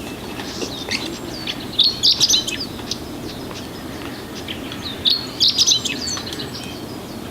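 Chestnut-eared bunting singing: two short, high-pitched song phrases of quick chirping notes, about three seconds apart, one a little under two seconds in and one about five seconds in.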